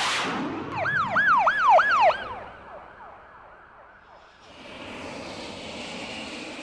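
A jet whooshes past, then a siren wails up and down rapidly, about three cycles a second, and fades away. Near the end a steady rushing jet-engine roar rises.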